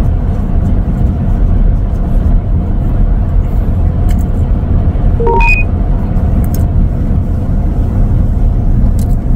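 Steady low road and tyre rumble inside the cabin of a Tesla Model X, an electric car, moving at speed. A short electronic beep sounds about five seconds in.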